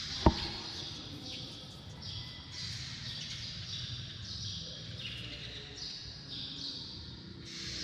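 Small birds chirping over and over in short high calls, roughly one or two a second. A single sharp knock sounds just after the start.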